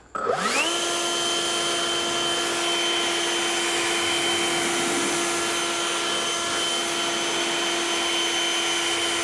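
Greenworks 80V cordless jet leaf blower spinning up in about half a second with a rising whine, then running steadily at its normal, non-turbo setting: a steady whine over a rush of air.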